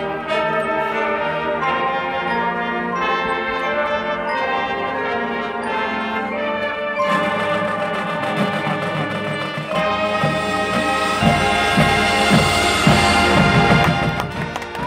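High school marching band playing its field show: the brass section holds sustained chords over mallet percussion, and from about eleven seconds in, low drum hits come in as the music builds to a loud climax.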